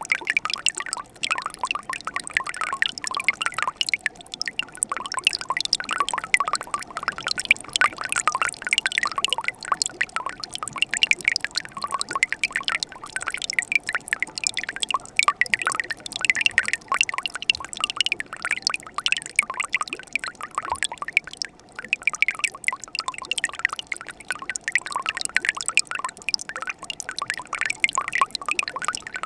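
Mountain stream water running in winter: a steady, unbroken patter of quick bright splashes and drips.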